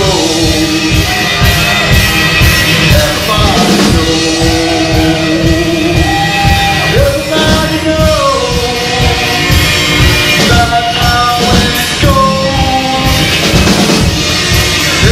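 Rock band playing loud live music, with drums keeping a steady beat under a singer's voice.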